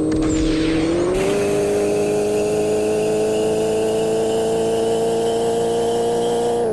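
Supercharged Honda NSX V6 engine running at a steady, slightly raised speed; the revs rise a little about a second in, hold level, and drop back right at the end.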